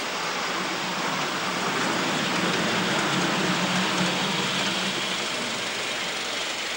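Ride-on miniature railway train rolling along its track, a steady rumble and hiss that swells about two to four seconds in.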